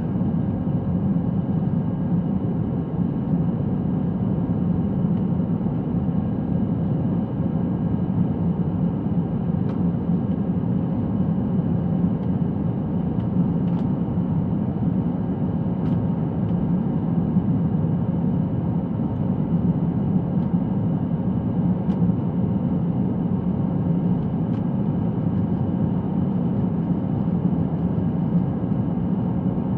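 Steady cabin noise of an Airbus A321 climbing out after takeoff: a low engine and airflow rumble heard from inside the cabin, with faint steady whining tones above it.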